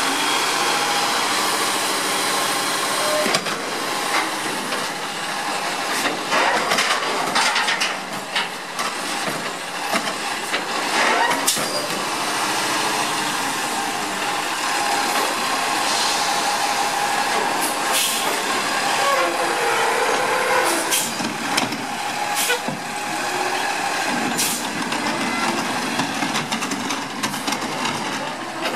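New Way Mammoth front-loader garbage truck working its hydraulic lift arms to dump a wheeled recycling container over the cab and lower it back down: steady engine and hydraulic noise with hiss, broken by repeated sharp clanks of the container and arms.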